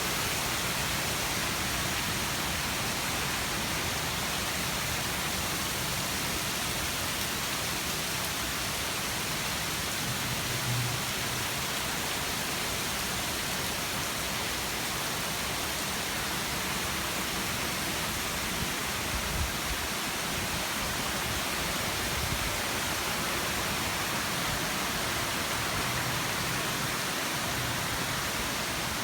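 Heavy storm rain falling in a dense, steady hiss, with a few brief low thumps about ten and twenty seconds in.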